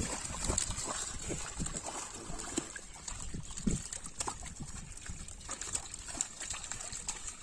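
Pond water splashing and sloshing as live netted fish flap and thrash in plastic baskets and water-filled pots while being handled, in short irregular splashes over a steady high hiss.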